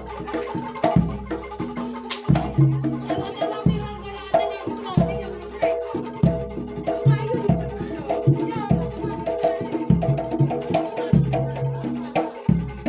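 Jaranan Dor ensemble music: deep jidor bass drum strokes a little over a second apart, with hand drumming and quick repeated pitched metallic notes over them.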